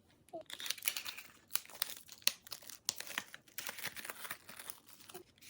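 Packaging crinkling and tearing as it is handled and pulled open by hand, a continuous irregular crackle with sharp snaps.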